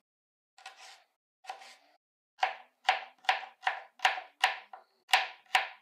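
Kitchen knife chopping cucumber on a plastic cutting board: a couple of soft cuts, then, from about two and a half seconds in, a steady run of sharp knocks of the blade on the board, about three a second.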